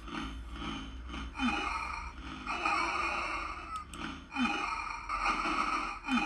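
A movie voice clip from a toy's talking-chip sound list, played through laptop speakers: a man's laboured, gasping breaths and sighs, repeating every second or so, from the dying Qui-Gon Jinn speech.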